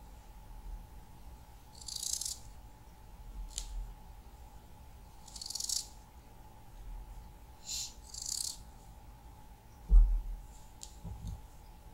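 Kitchen knife slicing through a raw potato held in the hand, each cut a short crisp scrape, four or five of them spaced a second or more apart. A dull knock about ten seconds in is the loudest sound.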